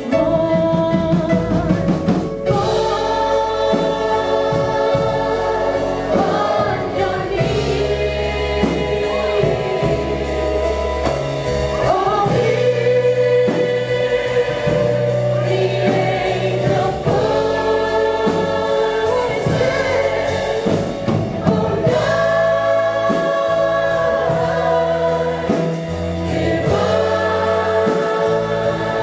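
A group of voices singing a Christmas song together over a band accompaniment with a steady bass line.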